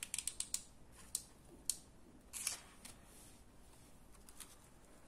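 Faint scattered clicks and light taps of hand crafting work: a hot glue gun being worked while glue goes onto a small paper picture card, which is then set by hand onto a burlap-covered cardboard disc. A quick cluster of clicks comes at the start, then a few single ones over the next couple of seconds.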